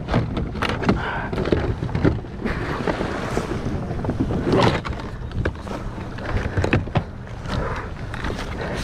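Wind buffeting the microphone and choppy water slapping around a plastic kayak, with many short knocks and clatters scattered throughout from gear being handled.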